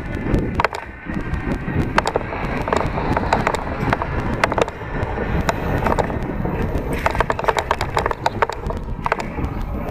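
Electric bike riding along pavement, heard from a helmet-mounted camera: steady tyre and wind rumble with irregular rattling clicks throughout.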